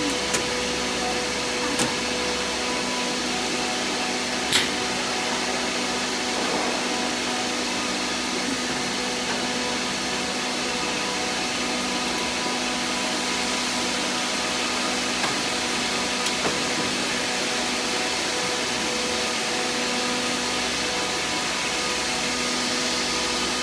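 Xinlei screw air compressor running steadily: an even hiss with a steady hum, and a few brief clicks.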